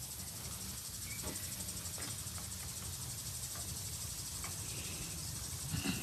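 Insects chirping as a steady, high, finely pulsing drone over a low rumble, with a few faint ticks; a faint steady high tone comes in near the end.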